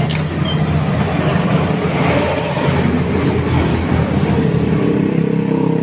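Small engine running steadily, with a constant low drone, its pitch shifting slightly near the end.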